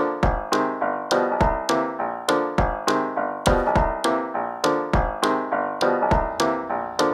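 Background music: quick, evenly spaced notes in a steady rhythm, each striking sharply and fading.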